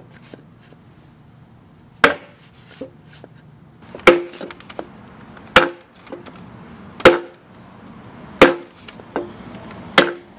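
A mallet striking a wooden block to drive a two-piece aluminum bushing into a Pontiac Fiero steel engine cradle. Six sharp knocks, about one every second and a half after the first, each with a short ring.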